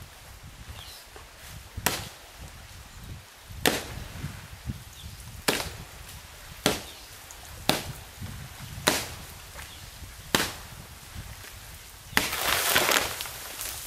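Axe chopping into the trunk of a rotten birch tree: seven sharp, separate strikes, about one every second or so. Near the end comes a louder, rushing noise lasting about a second.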